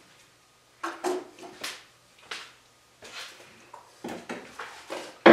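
Metal tools and parts being handled on a workbench or lathe: a series of irregular clinks and knocks, some ringing briefly.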